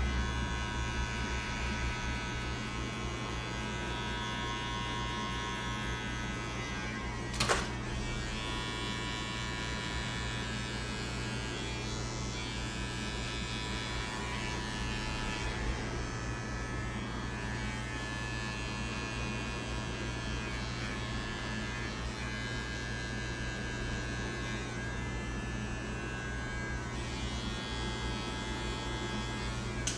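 Electric hair clippers running with a steady buzz while fading hair, with one brief click about seven and a half seconds in.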